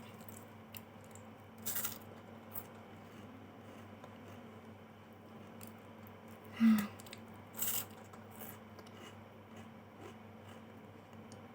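Chewing and biting into a Superstar chocolate wafer bar: a few short crunches, one a couple of seconds in and two more just past the middle, with quiet chewing between them over a faint steady hum.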